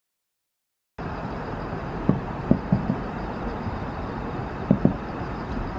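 Distant fireworks shells bursting as dull booms: three at about two to three seconds in and two more close together near five seconds. Under them is a steady rumble of city traffic. The sound starts suddenly after about a second of silence.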